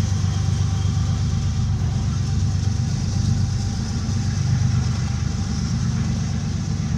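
Steady low rumble of a car in motion, engine and road noise heard from inside the cabin, with a light hiss above it.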